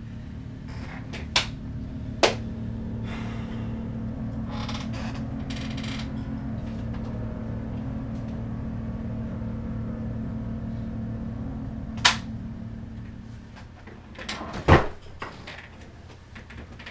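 A steady low hum that fades out about fourteen seconds in, with a few sharp knocks and clicks over it; the loudest knock comes near the end.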